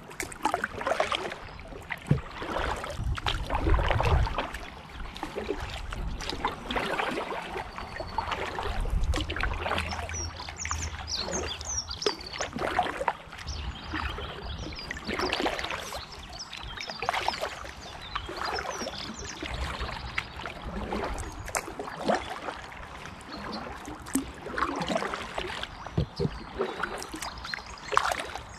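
Kayak paddle blades dipping into calm canal water in regular strokes, about one every second or two. Each stroke splashes and water drips off the blade in between.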